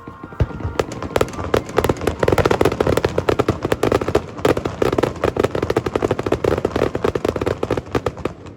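Fireworks display: one low boom, then a dense barrage of rapid crackling bursts that thins out near the end.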